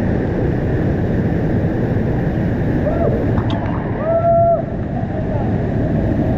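Loud, steady rush of a waterfall's falling water, close by. Short voices call over it about halfway through.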